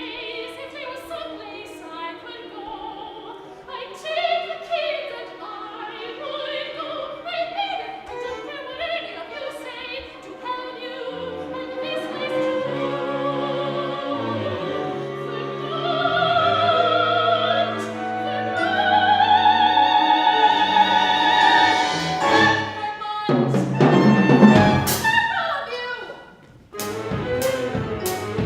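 Soprano singing an operatic aria with vibrato over instrumental accompaniment, climbing to a long held high note about two-thirds of the way through. The voice then drops out and the instruments play loud, sharply accented chords, with a brief dip before a run of quick strikes near the end.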